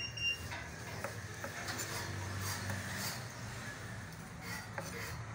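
Kitchen knife chopping cooked chicken pieces on a plastic cutting board, with soft, irregular taps and scrapes of the blade against the board.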